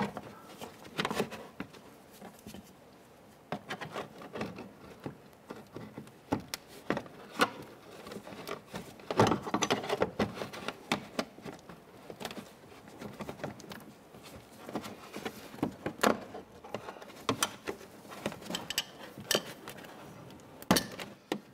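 Irregular small clicks, taps and scrapes of a plastic trim tool and gloved hands working behind a plastic wheel well liner, prying at the push-pin buttons that hold the ABS sensor connector; a few sharper clicks stand out among the fumbling.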